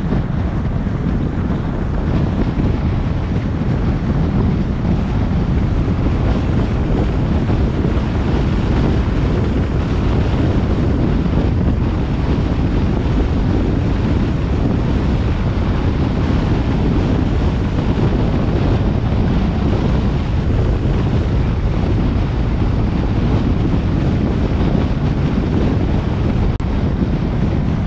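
Steady wind rushing over the microphone of a moving vehicle, with a constant low road rumble underneath.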